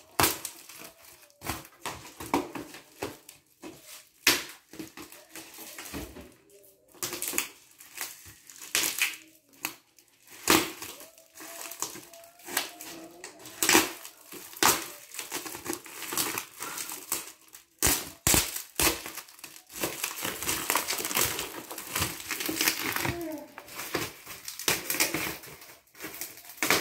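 Plastic wrapping and packing tape on a cardboard box being cut with a knife and torn and peeled away: irregular crinkling, ripping and sharp crackles, with the cardboard flaps rustling as they are pulled open near the end.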